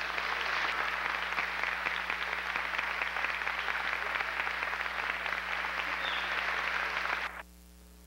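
Audience applauding, a dense steady patter of many hands, cutting off abruptly a little after seven seconds in.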